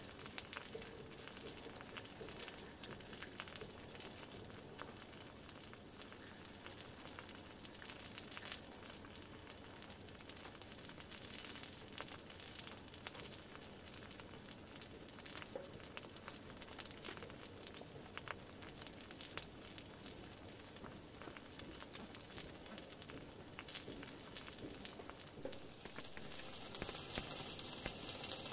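Wood fire crackling with scattered pops in a small wood-burning tent stove, with meat sizzling in a pan on the stove top. The sizzle grows louder near the end.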